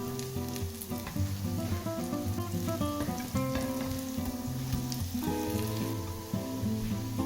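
Lentil patties sizzling and crackling as they fry in sunflower oil, over background guitar music.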